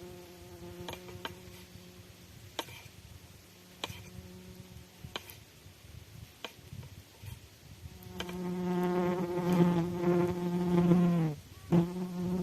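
A fly buzzing close by: a steady droning hum that swells in over a few seconds, stops abruptly, then briefly starts again near the end. Scattered sharp clicks sound in the quieter stretch before it.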